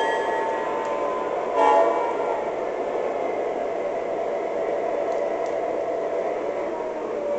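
O gauge model train running on its track with a steady rumble, its onboard sound sounding the horn: a held note fading out just after the start, then a short loud blast about a second and a half in.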